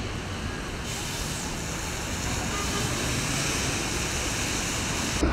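Steady hiss of slow city traffic on a wet, slushy street, engines running and tyres on wet pavement, growing brighter about a second in.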